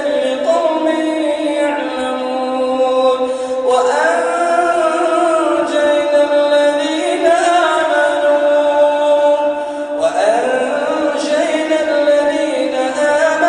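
A man chanting Quran recitation in the melodic tajweed style, holding long drawn-out notes, with new phrases starting about four and ten seconds in.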